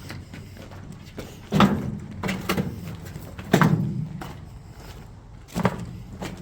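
Footsteps crunching on a gritty tunnel floor, with three heavy thuds about two seconds apart, each with a short echo.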